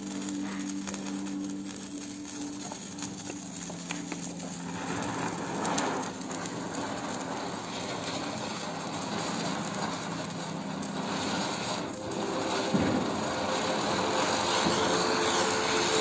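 Ground firework on a tiled floor hissing as it sprays sparks, the rushing fizz swelling about five seconds in and growing louder again near the end.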